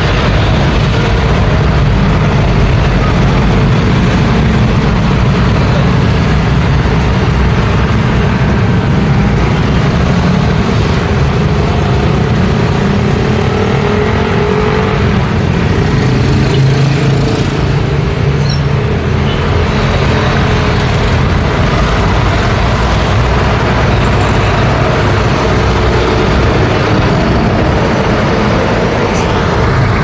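Continuous road traffic on a city street: cars and motorbikes passing, with engine and tyre noise making up a steady low rumble.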